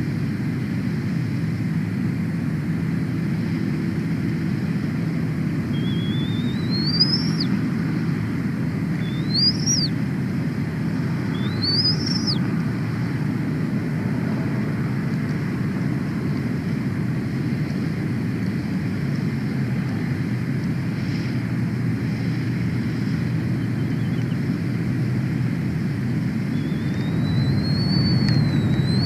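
Bald eagle giving high, rising whistled notes, the kettle-like 'tea kettle' sound: three short ones a few seconds apart, then a longer wavering whistle near the end. A steady low rumble runs underneath.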